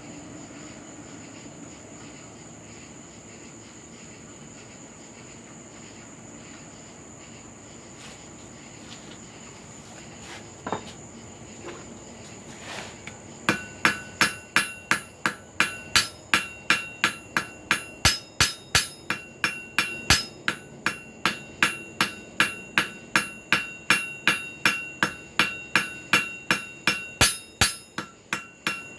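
Hand hammer forging hot steel on an anvil. Steady background noise for the first half, a couple of single knocks, then from about halfway a fast, even run of ringing hammer blows, about three a second.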